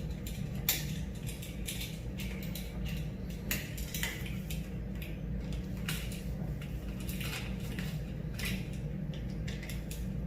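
Small irregular metallic clicks and scrapes of a screwdriver working the terminal screws of a light switch as the wires are fastened back on, over a steady low hum.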